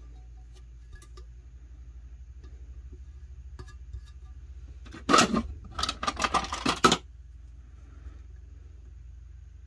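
Hands rubbing and pressing on a vinyl-wrapped epoxy tumbler. The result is a scuffing burst of about two seconds, made of quick uneven strokes, about halfway through, over a low steady hum.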